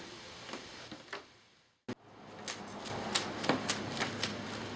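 Light clicks and taps of handling on a workbench: a few faint ones, a brief dropout about two seconds in, then a quicker run of sharp clicks, about two or three a second.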